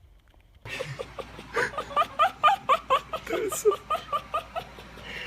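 Laughter: quick repeated giggles and snickers that start suddenly about a second in.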